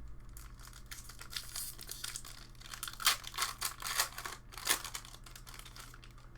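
Foil wrapper of a Magic: The Gathering booster pack being torn open and crinkled by hand, a run of irregular crackles and rips, loudest in the middle.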